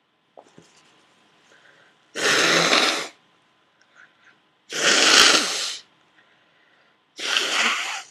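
Three forceful nose blows, each about a second long, from a person clearing a nose congested by a cold, with faint rustles between them.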